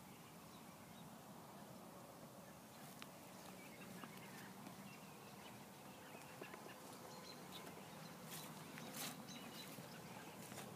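Near silence: faint outdoor background, with a few soft clicks and short high ticks in the second half.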